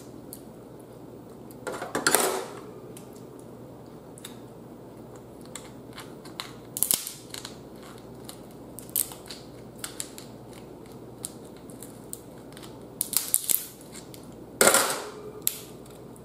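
Blue crab shells cracking and snapping as they are picked apart by hand. Scattered sharp cracks and clicks, the loudest about two seconds in and near the end.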